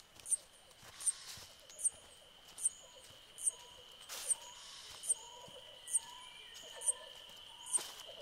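Jungle ambience: a short, high call repeating about every 0.8 s over a steady high insect drone, with brief lower bird-like calls joining in about halfway through.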